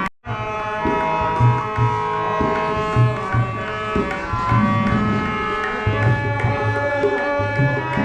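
Indian instrumental music: tabla strokes keeping a rhythm under sustained melodic notes, after a split-second silent gap at the very start.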